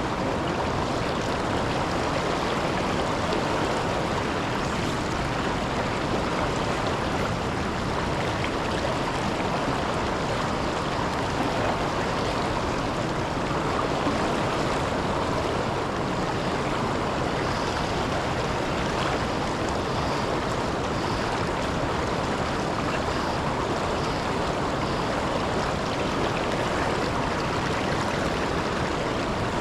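Steady rush of river water pouring over a low waterfall, an even noise with no breaks.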